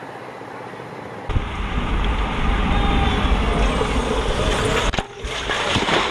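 Heavy wind rush on a bike-mounted camera and tyre hiss from road bikes riding fast in a bunch on a wet road, cutting in sharply about a second in. About five seconds in the sound breaks off for a moment and comes back with a knock as the camera's bike goes down in a crash.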